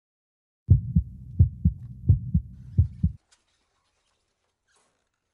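Heartbeat sound effect: four low double beats (lub-dub) about 0.7 s apart that stop after about three seconds.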